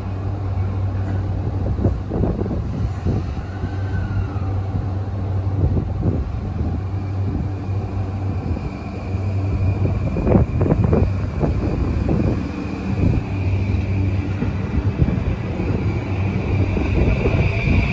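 E235 series 1000 subseries electric train pulling away from the platform. Its VVVF inverter motor whine rises in pitch as it speeds up over the second half, over a steady low hum, with a few sharp clacks from the wheels about ten seconds in.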